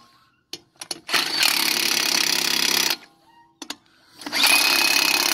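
Impact wrench driving the lug nuts onto a car's spare wheel, in two bursts of about two seconds each, the first about a second in and the second starting near four seconds in. There are a few short clicks in the quiet gaps between the bursts.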